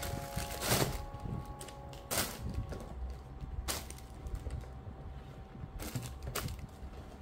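About five sharp clicks or knocks, a second or two apart, over a low rumble, with a faint ringing tone fading out during the first few seconds.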